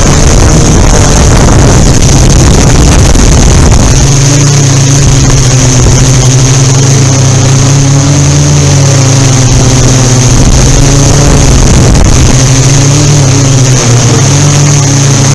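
Yuneec Typhoon Q500 4K quadcopter hovering: its motors and propellers give a loud, steady hum with a high whine above it, the pitch shifting a little as it holds position. Wind buffets the microphone underneath, and the sound cuts off suddenly at the end.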